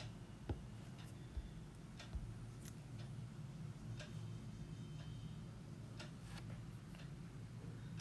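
A few light, irregularly spaced clicks and taps of a pen working on paper, over a faint steady low hum.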